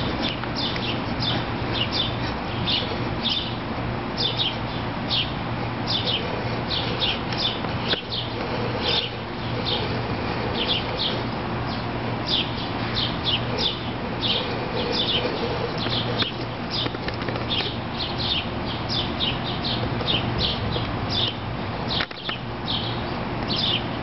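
Small birds chirping over and over, short high chirps a few times a second, over a steady low hum.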